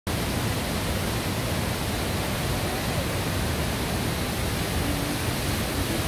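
Steady rushing of the Düden Waterfall's falling water, an even noise with no breaks.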